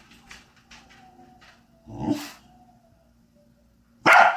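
A dog whimpering and whining, with a thin, high whine and a short whimper about two seconds in, then one brief, loud outburst near the end.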